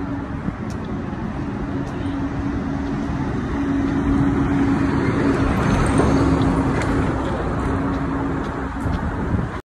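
City street traffic noise: a dense rumble with a steady engine hum, swelling louder through the middle and cutting off suddenly near the end.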